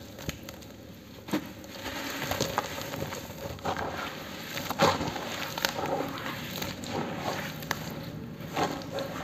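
Hands kneading and crumbling wet cement in a basin of watery slurry: irregular gritty crunching and wet squelching, with sharp crackles scattered through it, busier from about a second and a half in.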